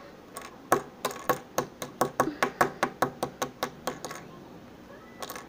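Fingers tapping quickly on a hard surface, about five light taps a second for nearly four seconds, with a slight hollow ring to each tap. One more tap comes near the end.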